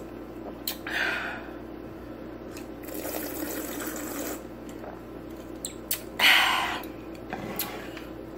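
A person drinking from a glass: sips and swallows, with a louder burst of breath about six seconds in and a few small clicks. A steady low hum from an air conditioner runs underneath.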